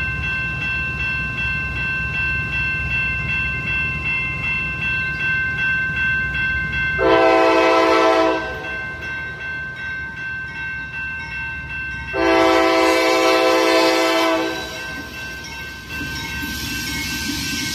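Railroad crossing bell ringing steadily at about two strokes a second, over a low rumble. A train horn sounds two chorded blasts, a short one about seven seconds in and a longer one about twelve seconds in, and near the end the rushing noise of the train reaching the crossing builds up.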